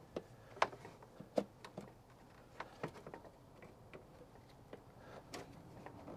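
Sparse, faint clicks and taps of the cabin air filter being pressed and seated into its housing under the cowl, with one sharper click near the end.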